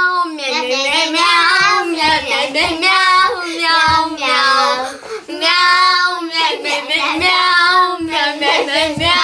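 A child's high voice singing a tune in long held and gliding notes, with a short break about five seconds in.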